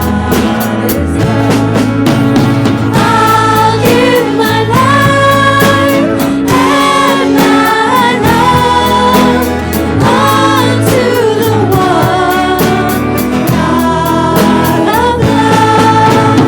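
Live worship band playing with sung vocals over a steady beat and sustained bass.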